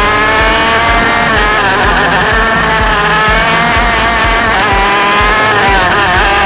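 Racing go-kart engine heard from onboard at speed, its pitch climbing over the first second as it accelerates, holding, then dropping and picking up again near the end as the kart slows for a corner and drives out.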